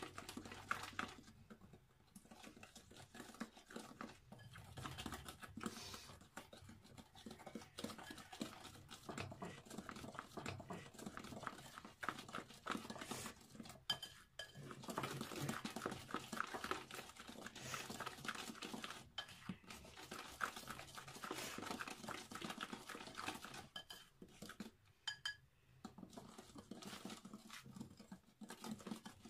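Cake batter beaten by hand in a bowl, the utensil clicking and scraping rapidly against the bowl's side, with a few brief pauses.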